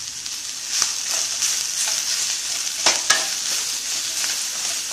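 Manathakkali greens and grated coconut sizzling in hot oil in a pan while being stirred and sautéed, a steady high hiss with a few sharp knocks, about a second in and again near three seconds.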